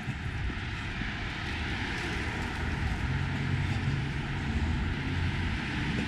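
Street traffic: a car driving past, its tyre and engine noise swelling over the first couple of seconds, with a low engine hum joining about halfway through.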